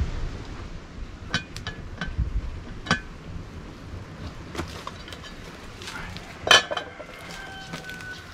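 Metal pot lid clinking against the pot as it is lifted off, then set down with one loud clank about six and a half seconds in that leaves a ringing tone.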